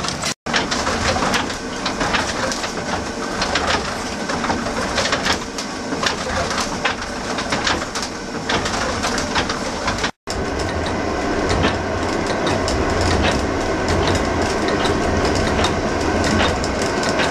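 Windmill machinery and millstones running while grinding wheat: a steady rumble with dense, rapid wooden clattering and rattling. It is broken twice by brief dropouts.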